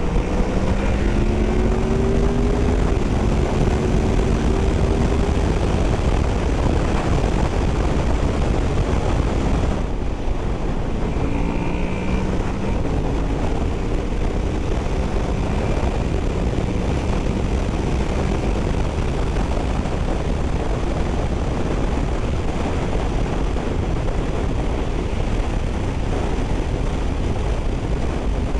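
Honda VFR800F V4 motorcycle engine accelerating through the gears, its pitch rising in steps over the first few seconds and again about twelve seconds in, under steady heavy wind noise on the microphone.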